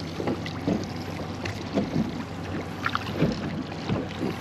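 Small waves slapping and lapping irregularly against a small boat's hull, with a steady low hum beneath.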